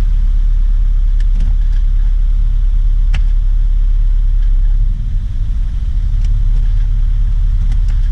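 Car engine idling with a steady low rumble, its level dropping a little about five seconds in as it bogs down under load when the transmission is put into gear. The owner suspects a transmission problem.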